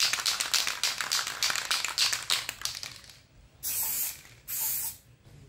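An aerosol spray-paint can is shaken, its mixing ball rattling in quick, evenly repeated clicks for about three seconds. Then come two short hisses of spray, each about half a second, from two passes of the nozzle.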